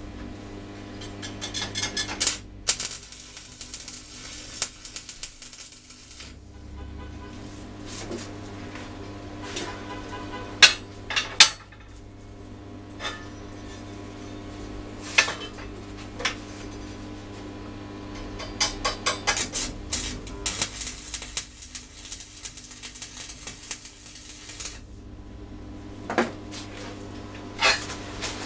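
Stick arc welder tack-welding steel parts, the arc crackling in bursts: a short one about two seconds in and a long one from about eighteen to twenty-five seconds in. A steady low hum runs under it, and sharp metallic clinks come between the bursts.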